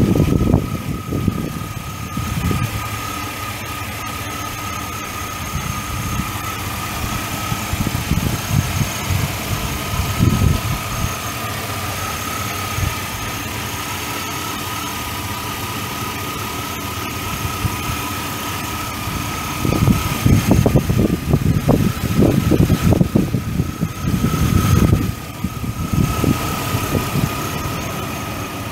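Chevrolet S10 pickup's 4.3-litre V6 idling, with a steady high whine over the engine hum. Bouts of irregular low rumbling come and go, strongest about twenty seconds in.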